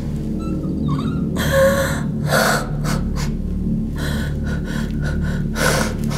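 A young woman gasping and breathing hard in distress, several sharp, ragged breaths about a second and a half in, again after two seconds, and near the end, over a steady low hum.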